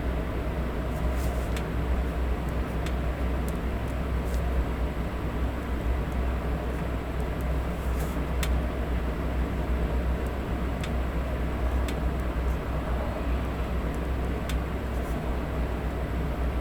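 Electric fan running steadily as white noise, an even rushing hiss with a low hum beneath it. A few faint light clicks are scattered through it.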